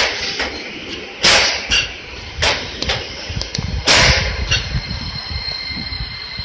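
Street tram moving off past the stop with a low running rumble, broken by a string of sharp knocks and short hissing bursts, the loudest about four seconds in.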